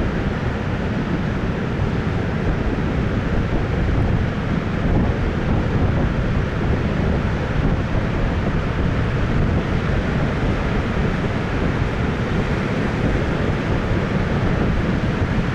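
Heavy post-typhoon swell breaking on the shore, a steady low rumble of surf with strong wind buffeting the microphone.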